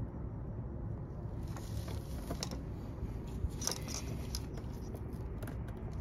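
Gloved hands handling wiring connectors and hoses in a car's engine bay: a scatter of light clicks and scrapes over a steady low rumble.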